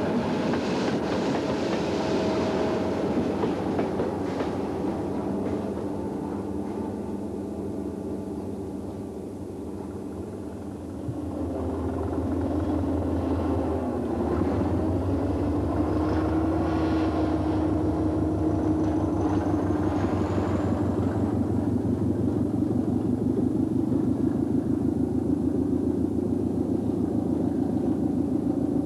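Diesel-electric multiple unit passing on the line, its diesel engine throbbing steadily under the sound of the wheels on the rails. The engine sound dips a little, then swells again about eleven seconds in and holds.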